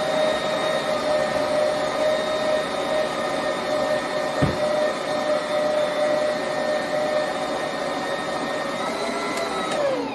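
Electric stand mixer motor running at a steady speed with an even whine, mixing a soft yeast dough of flour, eggs and butter. A single knock comes about halfway through, and near the end the motor is switched off and winds down with a falling pitch.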